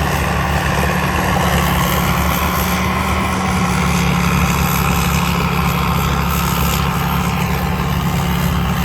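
TAMCO rice combine harvester with its 6HK diesel engine running steadily at working speed, a continuous heavy engine drone.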